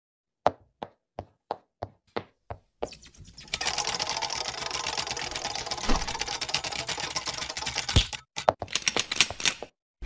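Sound effects of an animated channel intro: about eight sharp, evenly spaced clicks, roughly three a second, then a fast, dense clatter of clicks for about six seconds. A heavy thump comes near the end, then a few last clicks before it cuts off.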